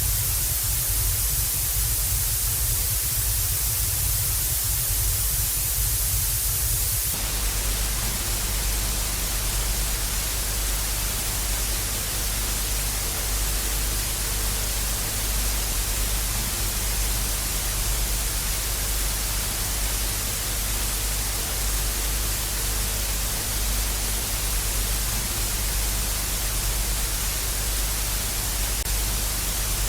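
TV static sound effect: a steady loud hiss of white noise. About seven seconds in, the static changes to a fuller, more even hiss with a faint hum underneath.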